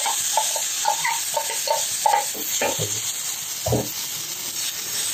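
Ragi dosa batter sizzling on a hot dosa griddle as a steel spoon spreads it, with short scrapes of the spoon against the pan and one louder knock near the middle.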